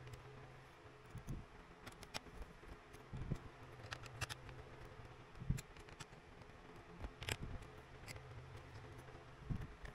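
Scattered faint clicks and scrapes of a small screwdriver working the screws that hold a laptop's battery, over a steady low hum.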